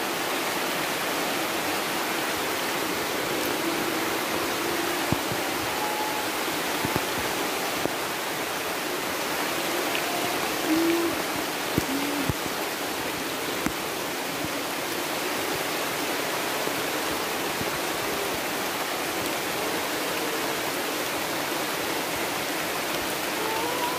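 Steady rushing water noise of a forest waterfall close by, mixed with heavy rain. A few faint short tones and light taps sound over it now and then.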